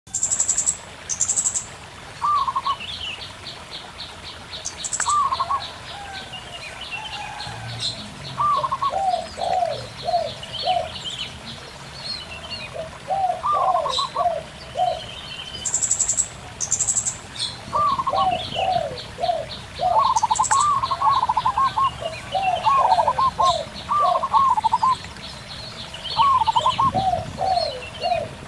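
Zebra doves and spotted doves cooing back and forth in short repeated phrases. Behind them run a fast, high-pitched pulsing trill, occasional short high chirps, and a faint murmur of running water.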